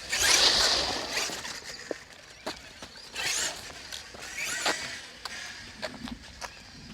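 Large-scale RC monster truck (Traxxas X-Maxx) tyres skidding and scrubbing across gritty pavement: three hissing slides, the first and loudest right at the start, with scattered small clicks and knocks between them.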